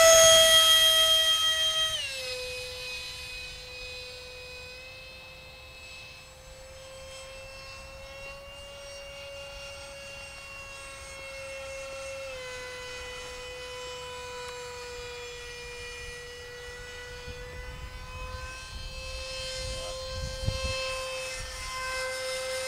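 The 50 mm electric ducted fan of a small RC F-16 jet in flight, a high whine. It is loud at first, drops in pitch about two seconds in and fades as the plane flies off, then slowly grows louder again near the end.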